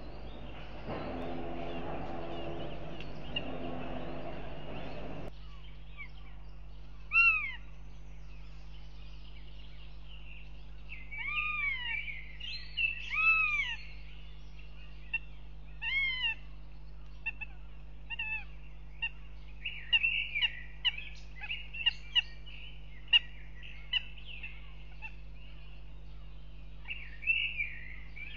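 Northern goshawks calling at the nest: several loud, arched wailing calls that rise and fall, then a run of short, sharp, high calls. Early on a steady rushing noise stops abruptly about five seconds in.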